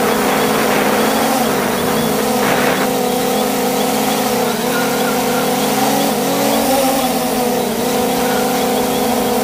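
3DR Solo quadcopter's motors and propellers humming steadily in flight, heard close from the camera on the drone. The pitch wavers briefly a little past the middle as the motors change speed.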